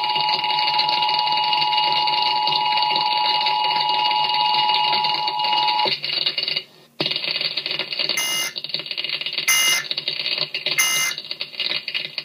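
Emergency Alert System two-tone attention signal sounding steadily, stopping about six seconds in. After a brief dropout come three short bursts of data tones about a second and a half apart, the end-of-message code that closes an EAS alert.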